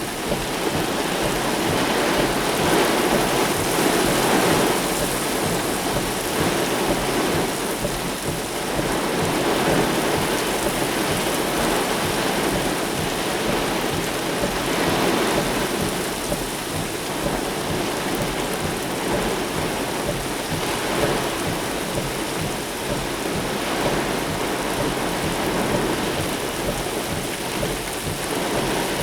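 Heavy rain pouring steadily in a thunderstorm, with rumbles of thunder swelling and fading a few times.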